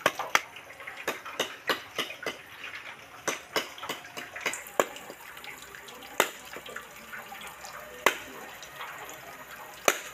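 A heavy curved chopping knife strikes a husked coconut, making sharp knocks. A quick irregular run of taps gives way to single harder blows about two seconds apart, as the blade scores around the shell to crack it open.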